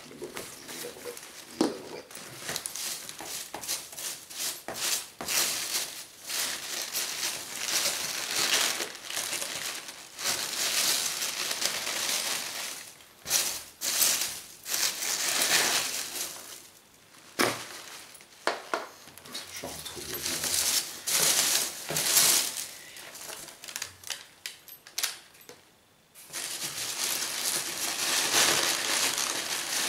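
Hands rummaging through foam packing peanuts in a cardboard shipping box, with the box flaps being pushed about: irregular rustling that swells and fades in spells, with a short lull near the end.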